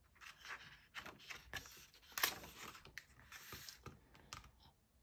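A page of a picture book being turned by hand: faint paper rustling and scraping, the loudest rustle about two seconds in.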